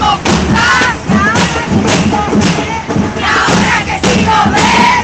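A street-march crowd of women chanting a slogan together, with drums beating along under the chant.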